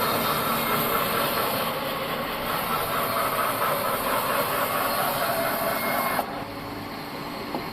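Band saw sawmill running and sawing a log, a steady hissing machine noise. About six seconds in it drops suddenly to a quieter running sound.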